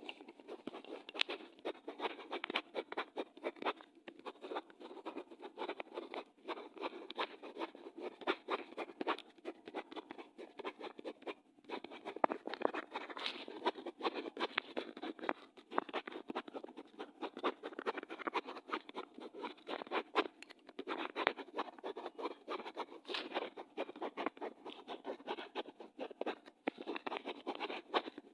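Pen scratching on paper in continuous writing, with quick irregular strokes and brief pauses between words.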